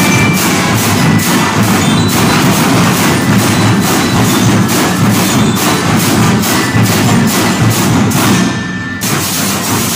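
School marching band playing: snare and bass drums keep a steady march beat under brass (sousaphone, trumpets, trombones) and bell-like percussion. The sound thins briefly near the end.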